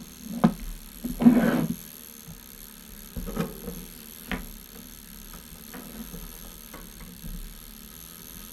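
Light handling noises of work at a bench: a few separate clicks and knocks, and one louder rustling scrape about a second in, over a faint steady hum.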